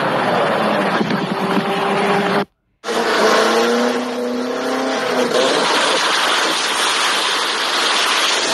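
Car exhaust from two clips, cut abruptly about two and a half seconds in. First a sports car accelerating through a tunnel. Then a Toyota hatchback's engine, strapped down on a dyno, revs up with rising pitch and holds at high revs.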